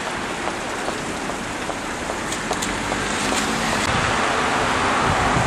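Street traffic on a wet, slushy road: a steady hiss of tyres on the wet surface, slowly growing louder in the second half as a vehicle approaches.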